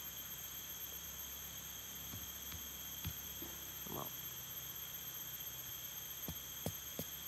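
Machete blade tapping against a thin peeled kepompon stem to split it: a few faint knocks, a cluster of them near the end, over a steady high drone of insects.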